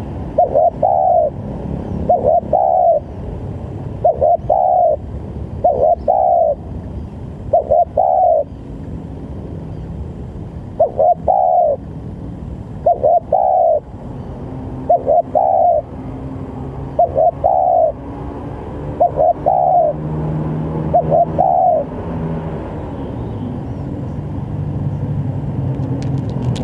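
Spotted dove cooing: a short two-part phrase repeated about every two seconds, eleven times, stopping about 22 seconds in. A steady low hum runs underneath and grows louder in the second half.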